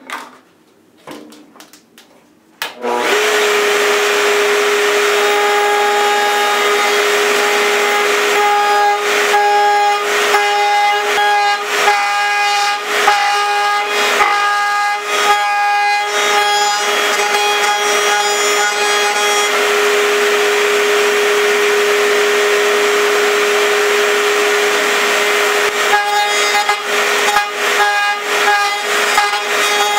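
Table-mounted router with a 3/4-inch roundover bit starts about three seconds in and runs at a steady high whine. A 1 1/4-inch wooden dowel turned against the spinning bit adds a rough, rasping cutting noise from about five seconds to about twenty seconds, and again near the end.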